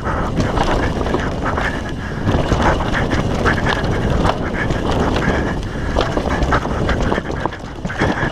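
Downhill mountain bike rattling and clattering at speed over a rough, loose dirt trail, with many sharp knocks from the chain, frame and suspension hitting bumps and holes, over a constant rush of tyre and wind noise.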